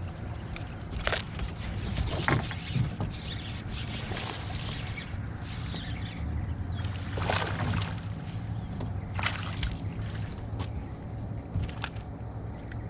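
Water splashing and sloshing at a fishing boat, a few short splashes over a steady low motor hum.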